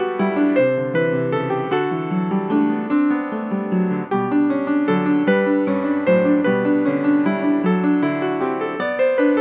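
Piano music: a steady stream of notes, chords and moving lines in a gentle, flowing style.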